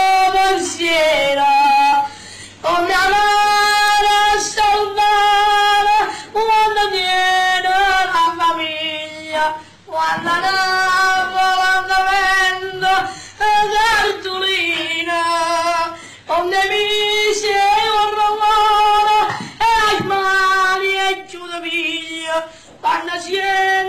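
A child's high solo voice singing a Neapolitan-style song unaccompanied, in long held notes with a wide vibrato, phrase after phrase with short breaks for breath.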